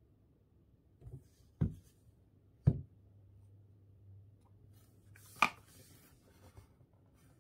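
Handling noise on a desk: four short knocks as a phone, a printed photo card and a small plastic photo printer are picked up and moved, the sharpest about halfway through and again near five and a half seconds, the last with a brief rustle.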